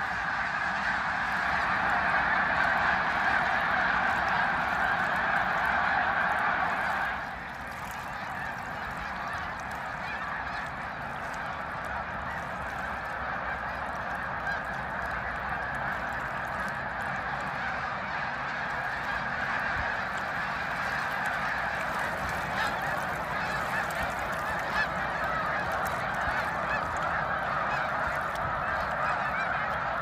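A huge flock of snow geese calling: a dense, continuous din of countless overlapping honks. It drops suddenly in loudness about seven seconds in and then carries on steadily.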